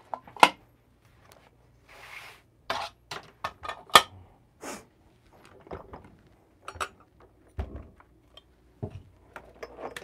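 Clear plastic hopper and lid of a Niche coffee grinder being handled and fitted onto the grinder: a string of scattered plastic clicks and knocks, loudest about half a second in and about four seconds in, with a brief rustle around two seconds.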